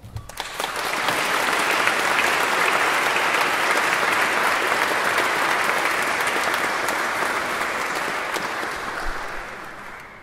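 Audience applauding after a choral song: the clapping swells up within about a second, holds steady, and thins out near the end.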